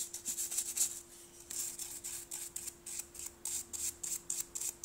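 Small wooden-handled brush scrubbing caked grime from the edge of a Cat S60 rugged phone's housing: quick back-and-forth strokes, a hissy scratching about three to four times a second.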